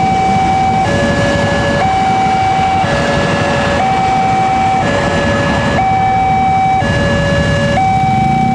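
Railway level-crossing alarm sounding its two-tone warning, switching between a higher and a lower tone about once a second. Under it runs the low rumble of a KRL commuter electric train passing over the crossing.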